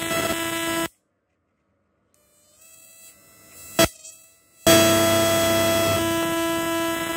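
Homemade 12 V electric fishing inverter buzzing loudly as its electrode discharges into a bucket of water. The buzz cuts off suddenly about a second in, a sharp click follows a few seconds later, and the buzz starts up again at the same pitch.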